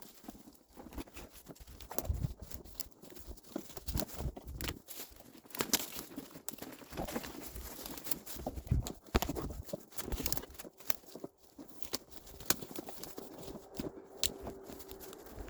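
Footsteps crunching and thudding unevenly through wet brush and undergrowth.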